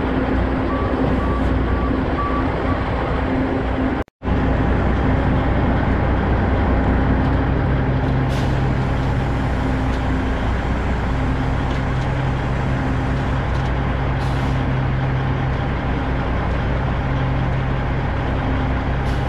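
Semi truck's diesel engine running steadily as the tractor pulls a loaded flatbed trailer. A reversing beeper beeps intermittently in the first few seconds.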